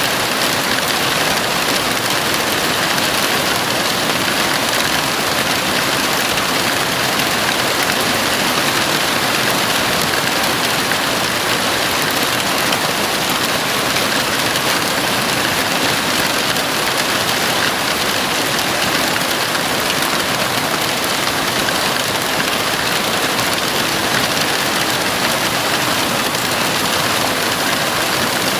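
Heavy rain falling steadily on a house roof, an even, unbroken hiss.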